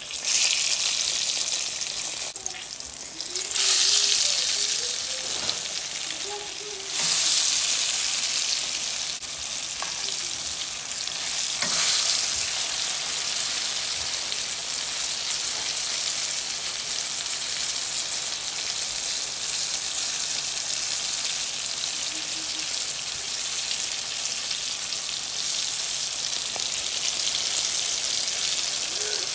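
Corn-flour-coated whiting fillets sizzling in shallow corn or vegetable oil in a frying pan. The sizzle jumps louder twice, about three and a half and seven seconds in, as fillets are turned over with tongs, then carries on steadily.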